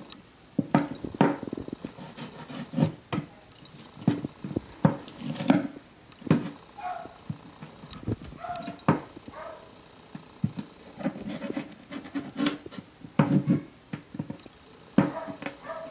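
Kitchen knife filleting horse mackerel on a wooden cutting board: irregular taps and knocks of the blade and fish against the board, with light scraping as the fillet is cut from the bone.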